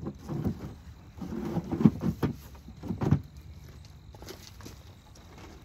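Wooden beehive boxes and frames being handled: a handful of irregular knocks with some scraping in the first three seconds, then quieter handling.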